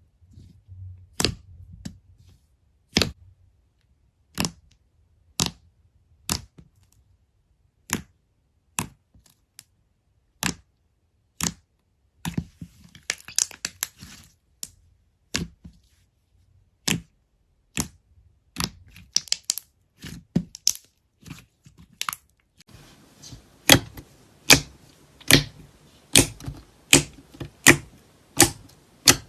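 Slime being squeezed and worked by hand, its trapped air pockets popping in sharp, separate clicks about once a second. From about 22 s in, a faint steady hiss comes up and the clicks grow louder and quicker, around two a second.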